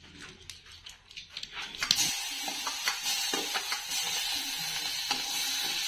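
Hot cooking oil sizzling in a kadai on a gas stove, a steady hiss that sets in suddenly about two seconds in, with a few light knocks of a spoon against the pan; before it, only a few faint clicks.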